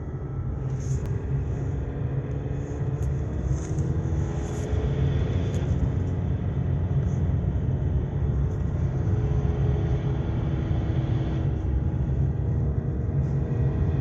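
Opel Astra K engine running: a steady low rumble with faint tones that drift slightly up and down in pitch.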